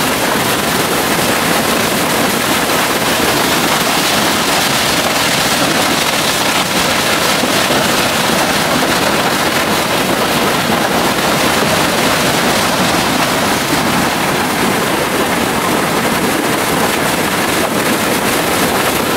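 Waterfall pouring: a loud, steady rush of falling water that holds even throughout.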